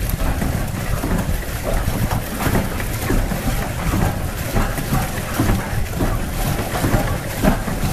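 Wind rumbling on the microphone over water splashing against the hull of a moving electric pedal boat: a steady noisy wash with small, irregular surges.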